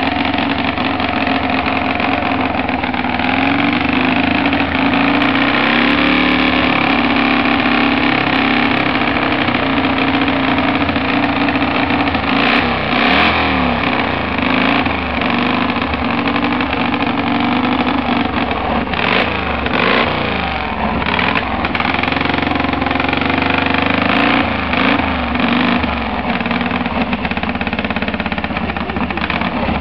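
1950 Vincent Black Lightning's 998 cc V-twin engine running on a rolling road, its revs rising and falling several times as the throttle is blipped.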